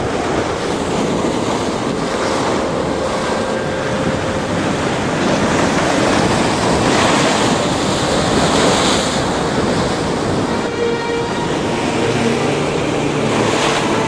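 Heavy storm surf: waves breaking and rushing, with wind on the microphone. The surges swell loudest around the middle. Faint music comes in near the end.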